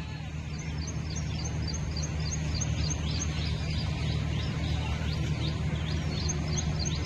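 Outdoor ambience of birds chirping in quick, repeated short high notes over a steady low hum.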